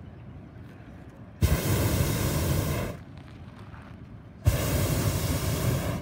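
Hot-air balloon's propane burner firing in two blasts, each about a second and a half long, a loud rushing roar that starts and stops abruptly, heating the envelope for lift-off.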